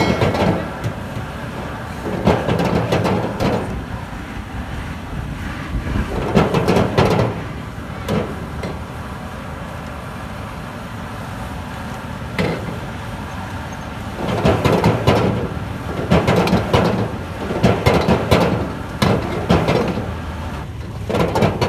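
Metal ladle scraping and clanking against a steel wok in bursts of quick strokes as vegetables are stir-fried, with pauses between the bursts and a steady rush underneath.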